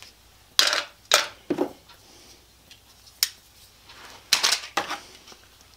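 Pieces of HDPE plastic bottle cap dropped into a blender jar, clattering in sharp clicks: several in the first second and a half, one about three seconds in, and a short cluster a little after four seconds.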